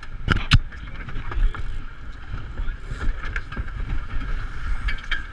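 Water rushing and splashing along the hull of an Ultra 30 racing sailboat under sail, with heavy wind buffeting on the microphone. Two sharp knocks about half a second in, then a few fainter clicks.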